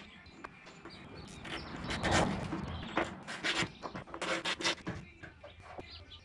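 Short bursts of scraping, rubbing and knocking from the steel boot lid of a classic Mini as it is worked at its hinges and swung shut against the body to check its fit.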